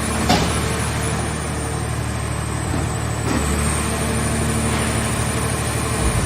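Scrap car shell baler's engine and hydraulic power unit running steadily, with two sharp metal clanks, one just after the start and one about three seconds in.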